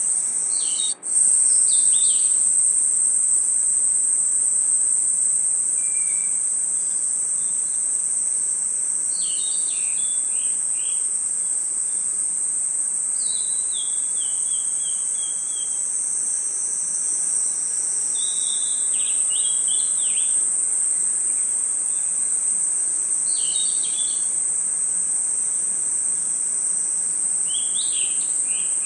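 Continuous high-pitched trilling of a cricket and insect chorus, with short groups of bird chirps breaking in every few seconds. The sound cuts out sharply for an instant about a second in.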